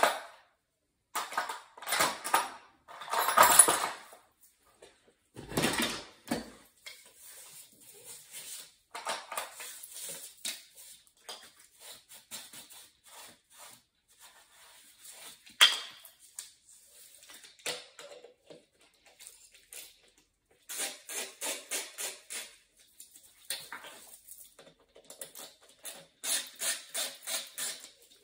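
Metal hand tools clinking, rattling and scraping against the metal parts of an oil boiler's burner while it is worked on. There are two runs of quick, even clicks, one about two-thirds of the way in and one near the end.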